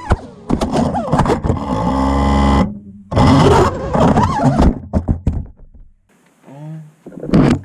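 FPV racing quadcopter's motors whining, their pitch rising and falling with throttle and then held steady, before the quad crashes and tumbles with scraping and knocks. Its motors stop about six seconds in, and a short loud burst follows near the end.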